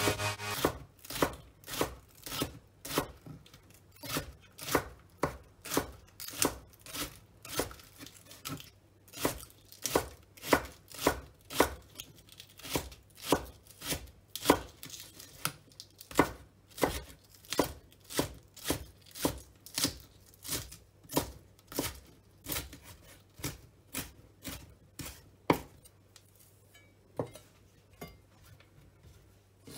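Chef's knife chopping spring onions on a wooden cutting board, with sharp, even strokes about two a second. The strokes thin out and stop near the end.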